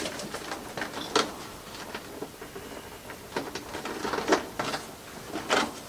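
Handling noise as clothes are pulled onto an animatronic prop: fabric rustling with a few sharp clicks and knocks from its frame, about four of them spread through.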